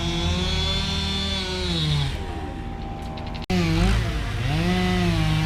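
Chainsaw running hard, its pitch sagging and picking back up as if it bogs and recovers in a cut. The sound breaks off for an instant about three and a half seconds in and resumes at once.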